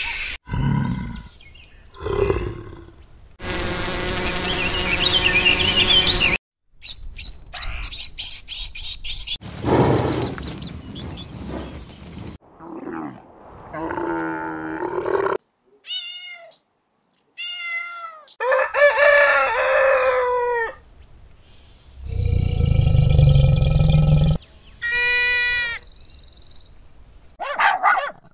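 A string of different animals' calls in short clips, one after another with brief gaps between them. Fruit bats squeak and chatter near the start, a camel calls around the middle, a deep low call comes later, and puppies start yapping near the end.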